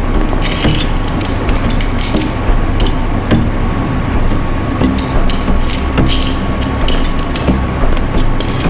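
Workshop machinery running with a steady low rumble and a constant hum, under irregular sharp metallic clanks and taps.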